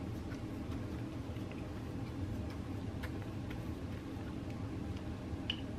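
Foam brush spreading glue mixture over paper: faint scattered light ticks from the strokes over a steady low room hum.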